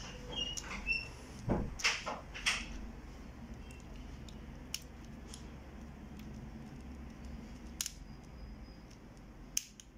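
Small plastic clicks and taps from handling the scanner's ADF roller-assembly parts and turning a small screwdriver in a screw, with a quick cluster in the first two seconds and a few single clicks later, over a faint steady background hum.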